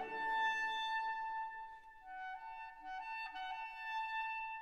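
Background music: a slow melody that holds one long note, then moves on in steps of shorter notes.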